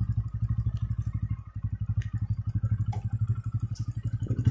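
Motorcycle engine running at low, steady revs with a rapid, even pulsing beat as the bike rolls slowly.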